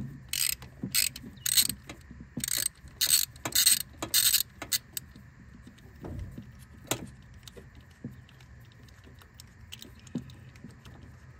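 Ratchet wrench on a long extension and spark plug socket backing out a spark plug on a Toyota 3VZ-E V6, clicking through about seven quick return strokes over the first four and a half seconds. After that come fainter scattered clicks and a knock as the socket and extension are handled.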